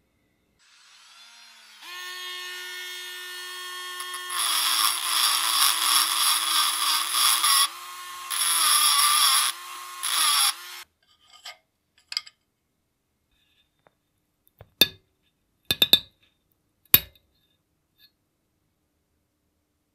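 Small high-speed handheld power tool motor spinning up and running, then pressed against a workpiece twice, its pitch sagging under load. It stops, and a few seconds later come several sharp knocks.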